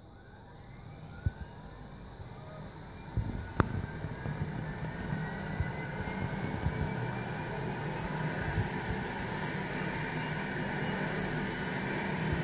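Rescue helicopter's twin turbine engines starting up: a whine that rises steadily in pitch and grows louder as the engines spool up and the main rotor begins to turn. A few sharp knocks come in the first four seconds.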